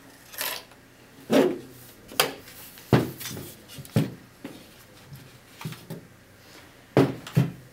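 Hard drive being slid out of a DVR's case and handled: a series of irregular knocks and clunks, several sharp, spaced about a second apart with a pause in the middle.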